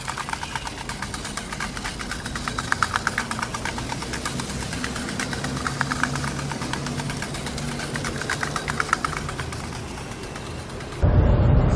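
A small engine running steadily with a rapid ticking over it. Near the end it cuts abruptly to a louder, deeper rumble.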